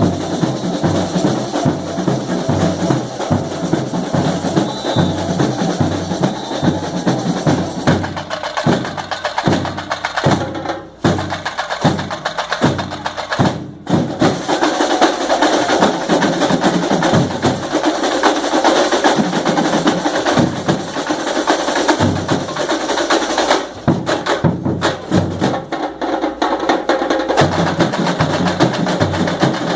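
A samba school bateria, a large drum and percussion section, playing samba at full volume. Partway through, the full groove gives way to a break of evenly spaced, accented drum strokes that cuts off sharply twice, then the full rhythm returns.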